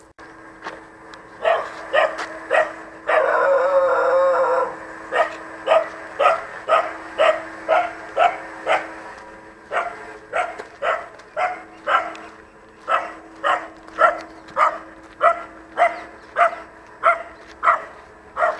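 A dog barking over and over at about two barks a second, with one longer, wavering call about three seconds in.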